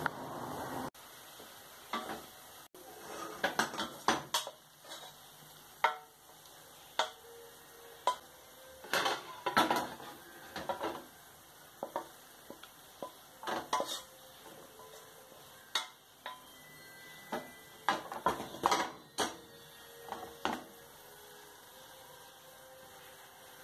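Wooden spoon knocking and scraping against a stainless steel pot in irregular taps and clinks, as cooked cavolo nero is stirred and then scraped out of the pot onto a plate.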